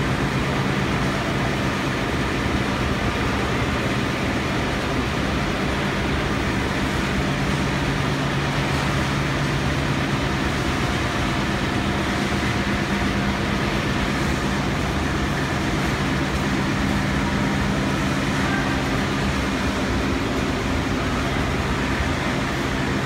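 Chewy candy production line machinery running: the extruder and rope-sizing roller drives give a steady hum over constant mechanical noise.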